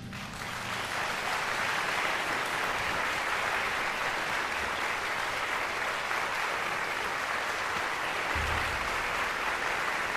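Audience applauding after a wind band's final chord: the clapping swells over the first second, then holds steady.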